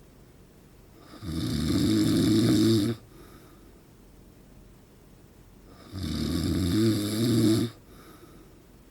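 A man snoring loudly in his sleep: two long rasping snores about five seconds apart, each lasting nearly two seconds, with quiet breathing between them.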